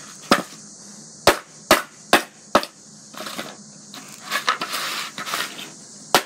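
Hammer striking a cardboard box: five sharp blows in quick succession, then a few seconds of rustling, crumpling cardboard, and one more blow near the end.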